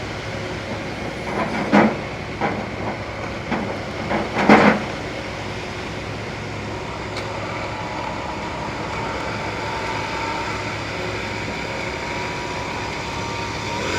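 Vibrating power screed running steadily as it is pulled over a freshly poured concrete slab, its vibration settling the wet concrete and driving out air bubbles. A couple of sharp knocks come about two and four and a half seconds in.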